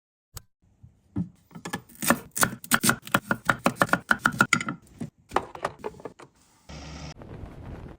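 A quick run of sharp clicks or taps, about five or six a second, for about three seconds, followed by a few scattered ones and a short rustling burst near the end.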